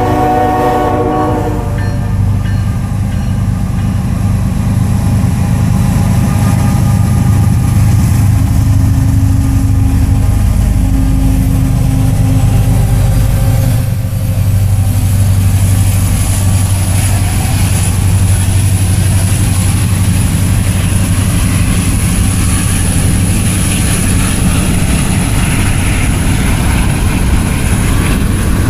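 A diesel freight locomotive's horn cuts off about a second and a half in. Norfolk Southern diesel locomotives, including an EMD SD70M-2, then rumble past. They are followed by freight cars rolling by with steady wheel-on-rail noise.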